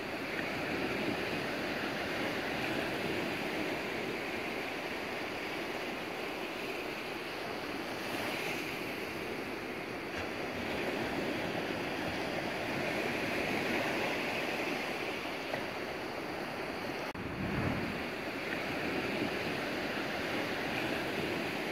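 Steady rushing noise that swells and eases slowly, with a brief low rumble about three-quarters of the way through.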